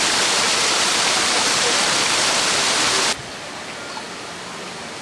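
Water rushing down a small rocky cascade in a garden, a loud steady rush that cuts off abruptly about three seconds in, leaving a quieter steady hiss of water.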